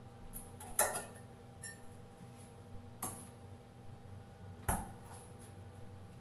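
Kitchen work clatter: a few sharp clinks and knocks of utensils and dishes on a stainless-steel counter, the loudest about a second in, another about three seconds in, and one near five seconds with a dull thump, over a steady low background hum.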